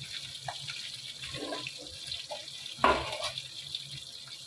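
Cumin seeds and asafoetida sizzling in hot oil in a kadhai, a steady high hiss with small crackles. A short, louder knock about three seconds in.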